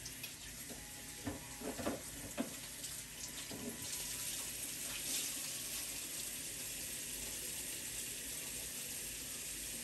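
Warm water sizzling steadily on a still-hot steel flat-top griddle as it steams off, with a few light knocks in the first couple of seconds.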